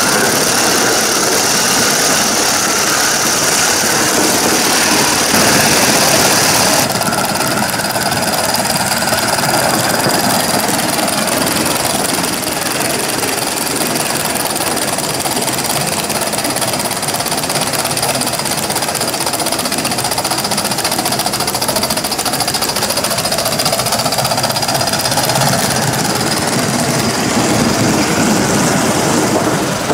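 Aster Gauge 1 live-steam model of a GWR pannier tank locomotive running with its coaches: steam exhaust and wheels running on the track make a steady mechanical rattle.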